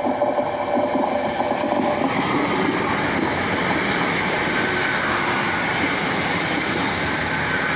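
Passenger train passing close by at speed. A whining tone for the first two seconds gives way to a loud, steady rush of wheels on rails as the carriages go by.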